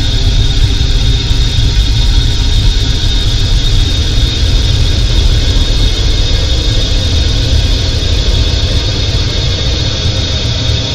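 Ambient noise music: a loud, steady drone with a heavy low rumble under a bright hissing layer, easing off slightly near the end.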